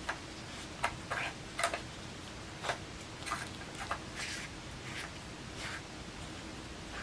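Plastic SPOT dog treat puzzle being worked by a dog's nose: about ten light, irregular plastic clicks and knocks as its lids and red dome are pushed and moved.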